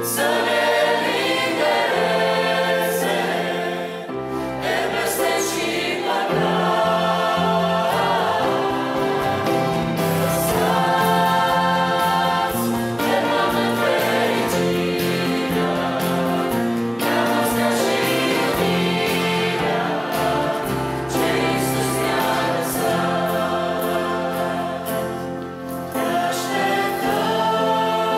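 Mixed youth choir singing a Romanian Christian hymn in parts, backed by a band with piano, guitars and drum kit.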